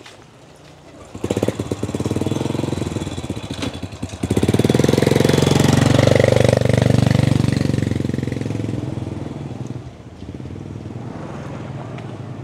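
Motorcycle engine passing close by, its rapid firing pulses swelling suddenly about a second in, loudest midway, then fading away about ten seconds in.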